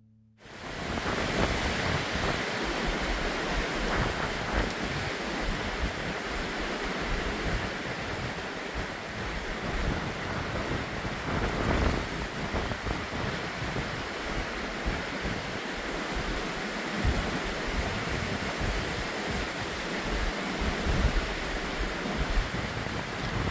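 Wind blowing on the microphone: a steady rushing with irregular, gusty low buffeting.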